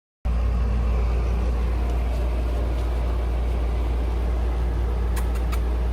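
Electric pump of a cat water fountain running with a steady low hum over a haze of flowing water, cutting in abruptly just after the start; a few faint clicks near the end.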